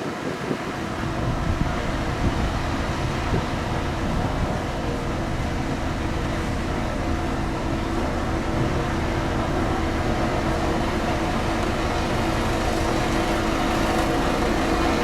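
Diesel engine of a heavy road-construction machine running steadily, with a steady drone that grows slightly louder near the end.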